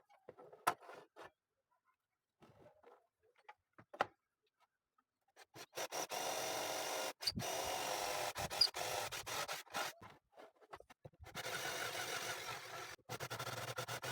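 A few light knocks and clicks, then a circular saw runs steadily in two stretches, cutting wood along the guide rail, with a short break between them.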